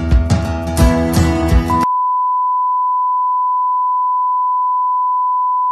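Background music with a strong beat that cuts off about two seconds in. It is replaced by a steady, unbroken single-pitch beep: the test tone that goes with television colour bars.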